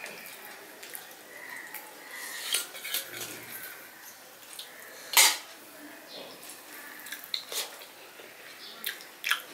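Stainless steel bowls and plates clinking and knocking together as a small steel bowl is picked up, tipped over a steel plate of rice and set back down; a handful of sharp clinks, the loudest a clank about five seconds in.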